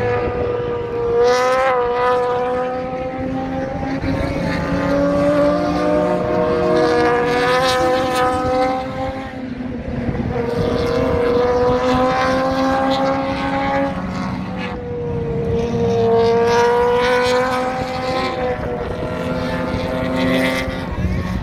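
Race car engines running hard at speed, the pitch climbing in long pulls and dropping back at gear shifts about nine and fifteen seconds in.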